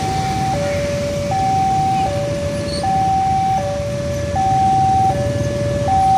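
Railway level-crossing warning alarm sounding its repeating two-tone signal, a higher tone then a lower one, each held about three quarters of a second, while the crossing is closed to road traffic. Under it is the low, steady rumble of waiting motorcycles and cars.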